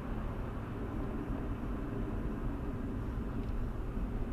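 Steady road and engine noise heard from inside a Hyundai i20's cabin while it drives along, an even rumble with no distinct events.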